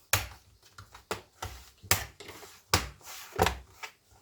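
Plastic bottom cover of a Dell Vostro laptop being pressed down, its clips snapping into place in about five sharp clicks about a second apart.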